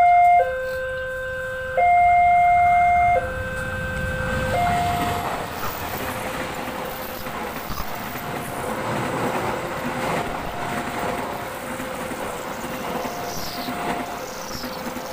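Level-crossing warning alarm sounding a high and a low tone in turn, each lasting about a second and a half, loud at first. From about four seconds in, a diesel-hauled passenger train (CC 203 locomotive and coaches) passes close by with steady wheel-on-rail noise, the alarm going on fainter underneath.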